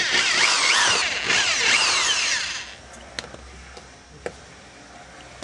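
Power drill boring through the plastic splash guard and wheel-well liner. It runs for about two and a half seconds with a brief letup partway, then stops, followed by a couple of light clicks.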